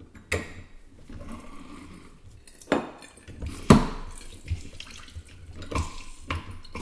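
A lever-arm lemon press being worked by hand: several sharp metal clunks from the press, the loudest a little past halfway, with lemon juice running and dripping into the steel cup in between.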